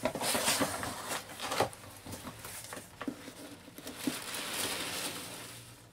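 Cardboard box flaps being folded back and rubbed, with sharp scrapes and clicks, then hands rustling through loose polystyrene packing peanuts around a product box.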